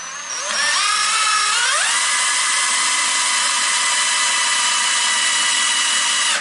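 Electric motor of the lathe starting up, its whine rising in pitch over the first couple of seconds, then running at a steady speed before cutting off suddenly near the end.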